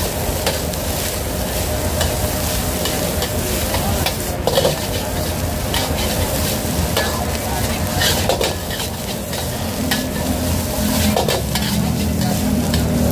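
Rice sizzling and frying in a hot steel wok while a metal spatula scrapes and clanks against the wok, stirring and tossing the fried rice, with a few louder scrapes spaced irregularly through it.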